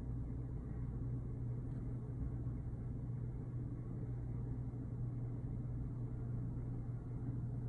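A steady low mechanical hum with a low rumble beneath it, unchanging throughout, with no distinct events.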